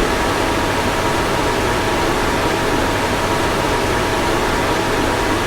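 Car fan blowing steadily: an even rush of air with a faint hum of steady tones underneath.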